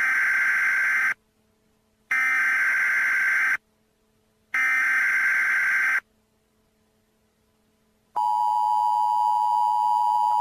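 Emergency Alert System broadcast for a weather warning: three harsh, screeching digital header bursts about a second apart, then a steady two-tone attention signal starting about eight seconds in.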